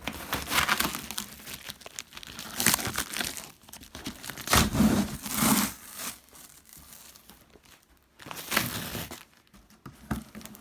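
Cardboard shipping box being handled and pulled at by hand: irregular crinkling, scraping and tearing noises in uneven bursts, loudest about halfway through.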